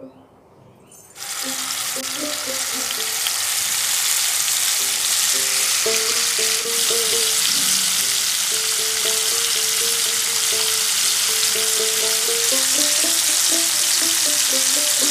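Turmeric-coated rohu fish steaks frying in hot oil in a frying pan: a loud, steady sizzle that starts suddenly about a second in as the fish go into the oil.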